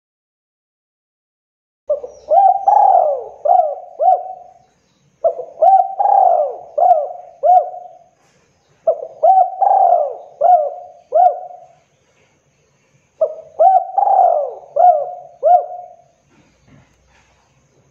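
Spotted dove cooing: four phrases a few seconds apart, each a quick run of four or five short, throaty notes.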